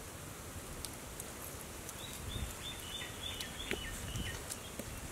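A small bird calling a quick run of about seven short chirps, each falling in pitch, over steady outdoor background noise, with a few faint clicks.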